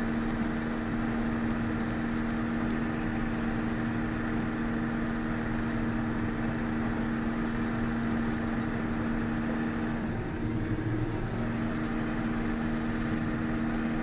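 Combine harvester running steadily while harvesting corn, heard from inside the cab: an even engine and machinery drone with a steady hum, wavering briefly about ten seconds in.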